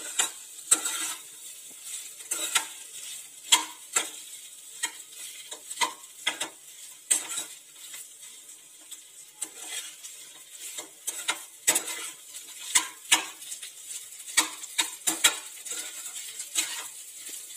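Steel spatula scraping and clinking irregularly against a small frying pan while stirring boiled potato pieces through hot oil, with a light sizzle of the frying underneath.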